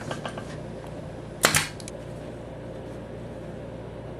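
A finish nail gun fires once, about one and a half seconds in, with a single sharp shot.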